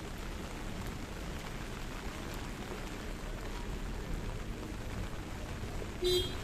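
Steady rain falling. About six seconds in comes a brief, loud pitched beep with overtones.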